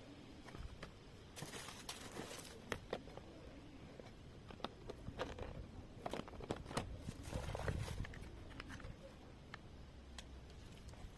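Product packaging being handled: paper and a cardboard box rustling and crinkling, with scattered light clicks and knocks as plastic containers are lifted out.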